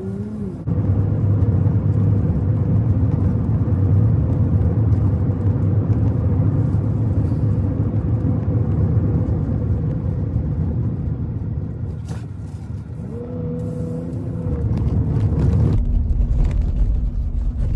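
Road and engine noise inside the cabin of a moving Chevy Colorado pickup, a steady rumble. About three-quarters of the way through, the engine note rises and then holds as the truck picks up speed.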